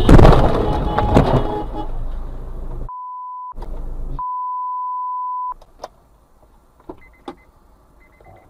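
A car collision: a loud crash right at the start, followed by a couple of seconds of rattling and scraping. Then a steady high bleep tone sounds twice, short and then longer, with the rest of the sound cut out beneath it, and a few faint clicks follow.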